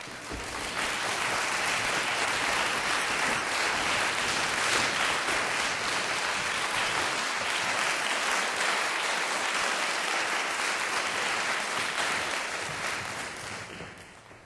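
Audience applauding steadily, dying away in the last second or so.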